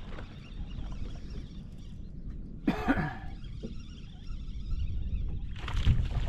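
A person coughs once, about three seconds in, over a steady low rumble. A short rushing noise follows near the end.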